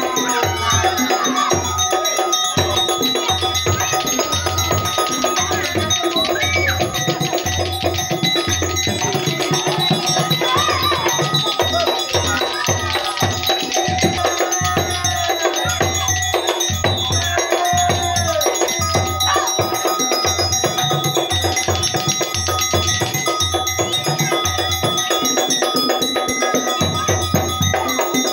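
Rhythmic percussion music: repeated drum beats under steady ringing metallic tones, the drum-and-gong accompaniment of a topeng monyet street monkey show.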